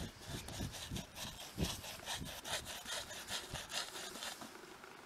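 Paintbrush scrubbing bitumen roof coating onto gritty mineral roofing felt in quick back-and-forth strokes, about three a second, growing fainter near the end.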